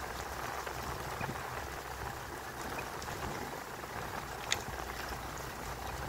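Forest trail ambience: a steady rushing noise with a low rumble, a few faint short high chirps, and one sharp click about four and a half seconds in.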